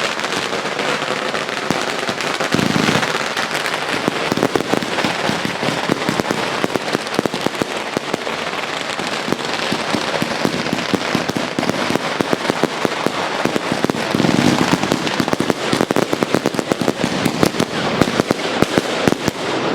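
Fireworks going off without a break: a dense crackling of many small bangs. Deeper booms come about three seconds in and again around fifteen seconds in, and a run of sharper, louder cracks follows near the end.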